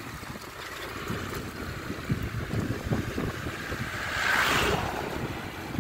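Honda CB motorcycle engine and exhaust running on the move, its firing pulses heard through wind buffeting the microphone. A louder rush of noise comes about four seconds in.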